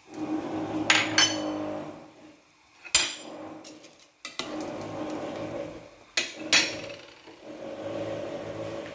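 A metal spoon knocking and clinking against a stew pot while stirring, about five sharp knocks spread through, over a steady low background hum.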